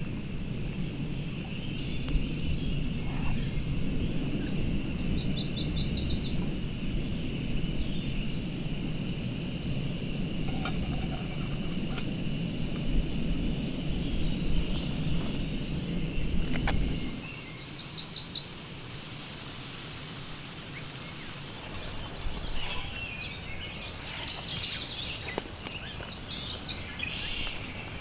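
Outdoor evening ambience: a steady high-pitched trilling chorus with short, repeated chirping bird calls. Under it runs a low steady rumble that cuts off abruptly about two-thirds of the way through.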